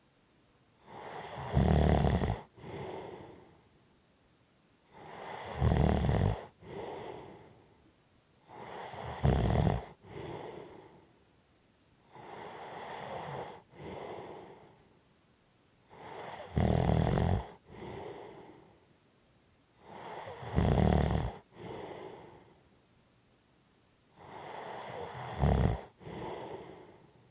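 A person snoring heavily, about one breath every four seconds. Each breath has a loud rattling snore followed by a softer breath. Near the middle, one breath passes without the rattle.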